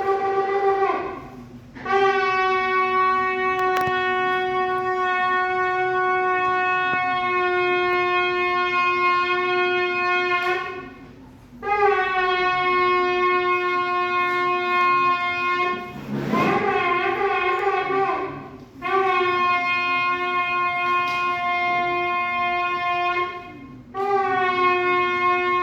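Shofar (ram's horn) sounded in a series of long held blasts, each several seconds, with short breaks between them; about sixteen seconds in the tone wavers briefly before the next long blast. This is the customary shofar blowing of the month of Elul.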